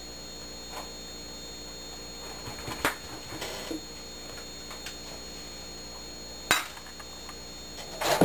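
Dishes knocking and clinking as plates are lifted out of a wire dish rack and put away: a few separate sharp clinks, the loudest about six and a half seconds in, then a longer clatter near the end, over a faint steady hum.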